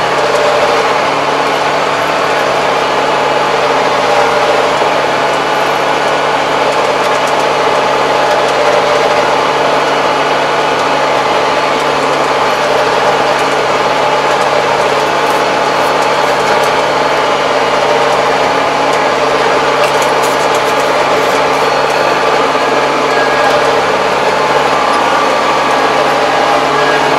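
Kubota 75-horsepower tractor's diesel engine running steadily under way, heard from inside the closed cab.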